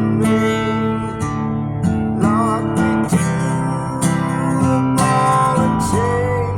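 Acoustic guitar music: strummed chords under a melody line whose notes bend in pitch.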